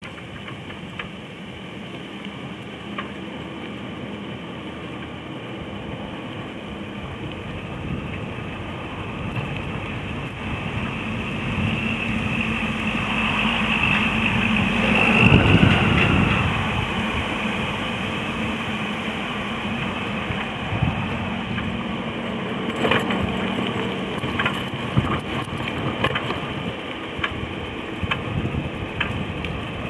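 Riding noise picked up by a camera mounted on a cruiser bicycle rolling along a paved path: a steady rumble that swells to its loudest about halfway through, with scattered rattling clicks in the second half.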